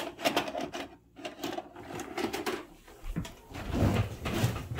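A VHS cassette is pushed into a VCR's front loading slot, with a quick run of clicks and clunks as the loading mechanism takes it in. Heavier low clunks and rumbling follow near the end.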